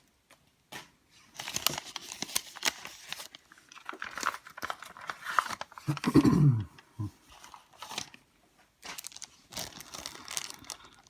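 Packaging being unwrapped by hand: crinkling and tearing of the wrapping around a mailed coin, with irregular rustles and small clicks. About six seconds in comes a short, louder low sound that falls in pitch.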